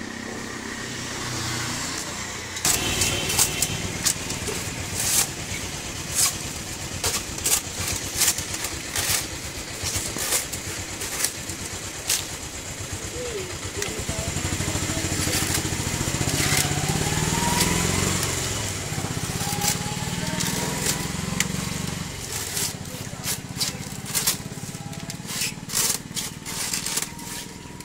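Sharp clicks and cracks of thin bamboo strips being cut and snapped with a curved hand knife and worked into a woven basket rim, irregular and at times several a second. A low engine hum runs underneath.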